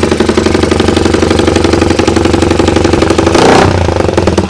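Motorcycle engine running fast and steady through an aftermarket racing exhaust that is packed with noodles and water, with a short louder burst about three and a half seconds in as it is revved.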